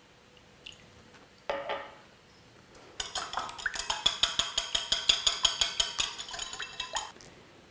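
Wire whisk beating eggs and milk in a ceramic bowl: a fast, even clinking of the metal tines against the bowl, about six strokes a second, starting about three seconds in and stopping near the end. Before it, a single clink about a second and a half in as the small glass milk bottle is set down.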